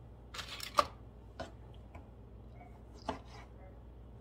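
Kitchen knife slicing a tomato on a plastic cutting board: a few sharp knocks of the blade against the board, the loudest just under a second in, then single knocks about a second and a half and about three seconds in.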